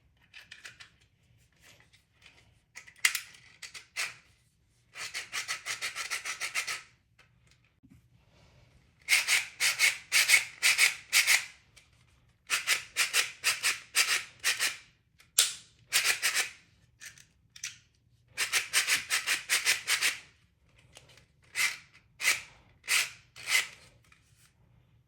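Hand work on 3D-printed plastic parts: short bursts of rapid rasping or scraping strokes, several a second, with pauses in between.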